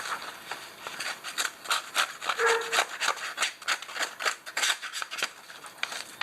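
Victorinox penknife's blade edge scraped hard and fast across a hard surface, about three strokes a second, deliberately dulling the edge.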